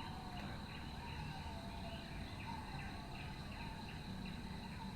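Faint background chirping, a short chirp repeating about three times a second, over a steady faint hiss.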